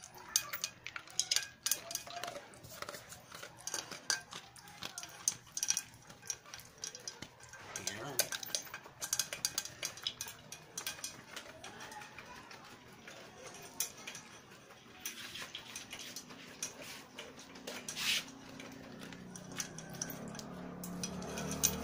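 A dog eating dry kibble from a metal pot: irregular crunching and clinking as pellets and its muzzle knock against the metal. A low rumble builds up near the end.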